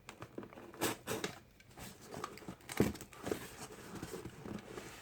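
Action figure packaging being handled and opened: crinkling and tearing with scattered clicks and taps, a couple of them louder.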